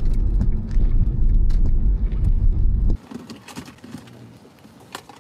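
Car cabin noise while driving, a steady low rumble of engine and tyres, which cuts off abruptly about three seconds in. After that only a faint hum remains, with a few light clicks.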